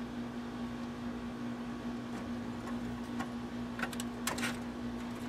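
A few sharp clicks and scrapes of wires and terminal screws being handled in a metal time-clock enclosure, bunched together about four seconds in, over a steady low hum.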